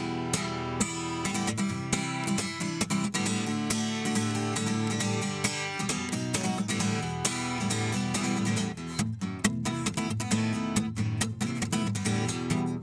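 Acoustic guitar played solo, a steady run of picked and strummed chords with no singing.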